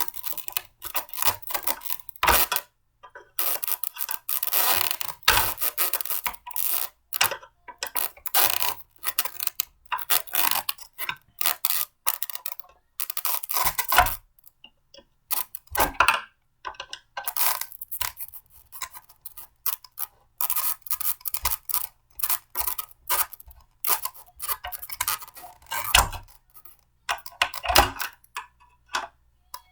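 Blender parts being handled and fitted together by hand: irregular clicking, rattling and scraping of hard plastic and metal pieces, with short pauses between bursts.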